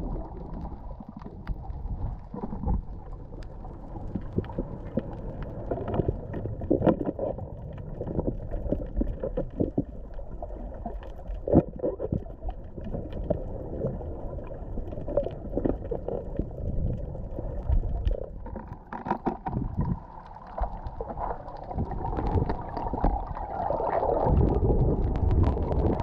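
Muffled underwater sound picked up by an action camera in its waterproof housing: a low rumble of moving water with scattered clicks and knocks. It grows louder near the end.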